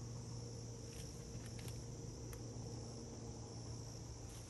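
Steady chorus of insects, crickets among them, high-pitched and continuous, over a low steady hum, with a few faint clicks.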